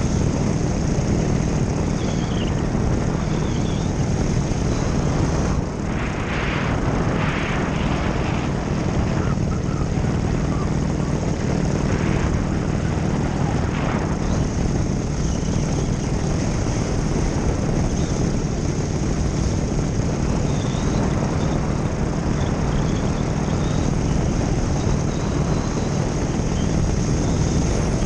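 Paramotor's Nitro 200 engine and propeller running steadily in flight, with no change in speed.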